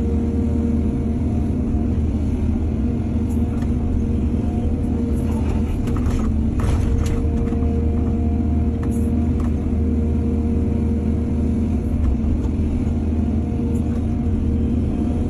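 Excavator's diesel engine running steadily at a constant pitch, with a few brief clanks or scrapes about halfway through.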